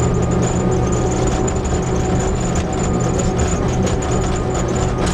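Fiat Seicento Sporting Abarth's 1.1-litre four-cylinder engine idling, a steady even note that does not rise or fall.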